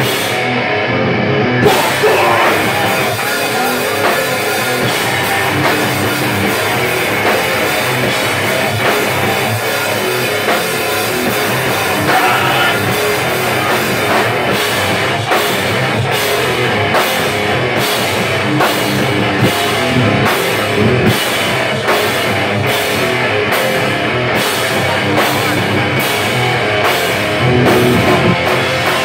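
Hardcore band playing live: distorted electric guitar, bass guitar and drum kit at full volume. From about halfway, the cymbals strike a steady beat about twice a second.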